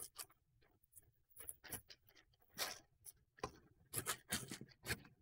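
Plastic poly mailer crinkling and rustling in short irregular bursts as hands pull it open and draw out a clear plastic zip-lock bag.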